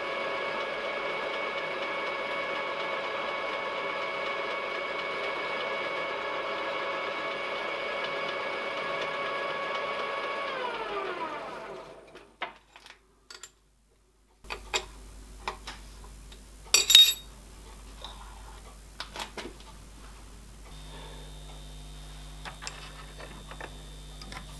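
CNC milling machine spindle running steadily with a 1 mm ball-nose end mill, a steady whine with several tones, then winding down with falling pitch about eleven seconds in and stopping. After a short gap come scattered light clicks and taps of small hand work at a bench vise, with a faint steady hum near the end.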